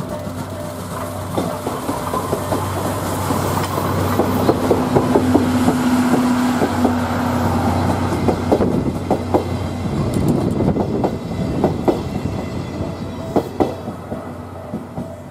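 Steam locomotive C11 123 running past at close range, hauling a brake van and 14-series passenger coaches. A steady low hum is followed by a run of sharp rhythmic clicks as the coaches' wheels cross rail joints, and the sound fades as the train moves away near the end.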